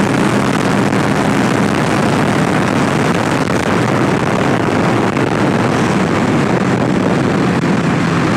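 2018 Kawasaki Ninja 650's parallel-twin engine running at a steady pace while the bike cruises, its even engine note over a constant rush of wind noise.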